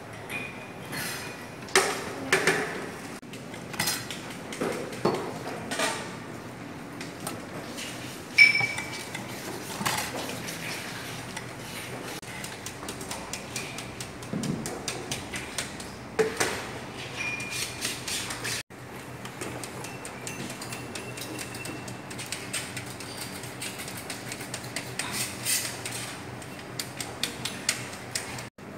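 Scattered clinks, taps and knocks of pharmacy lab ware being handled on benches, porcelain mortars, glass jars and balance parts, some ringing briefly.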